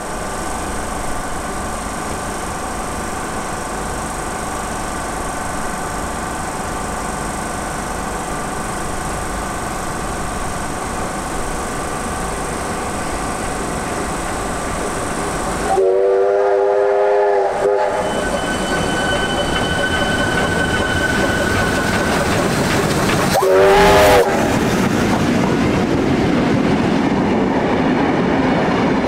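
K-class steam locomotive K190 running into the station hauling Tait carriages, sounding its whistle in a long blast about two-thirds of the way in and a short one a few seconds later. The wooden carriages then roll past, wheels clacking over the rail joints.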